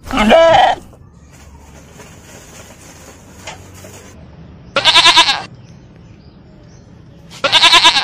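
A farm animal gives three loud, wavering, bleat-like calls, each under a second long: one at the very start, one about five seconds in and one near the end.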